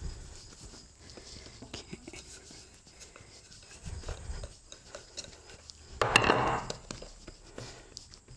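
Soft handling of scone dough, shaped by hand and rolled out with a wooden rolling pin on a floured wooden board: light taps and rustles, with one louder scrape lasting under a second about six seconds in.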